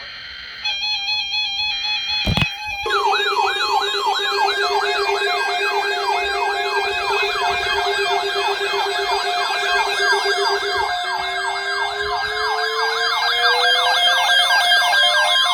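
Several electronic sirens sounding at once: a fast yelp sweeping up and down several times a second, over a steady pulsing lower tone. About eleven seconds in, a slow wail starts rising in pitch. A sharp click comes a couple of seconds in, just before the yelp starts.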